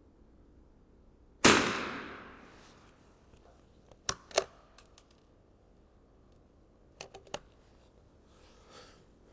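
.22 LR rifle firing a single shot, with a tail that echoes for about a second. A few seconds later come two groups of short metallic clicks as the rifle's action is worked.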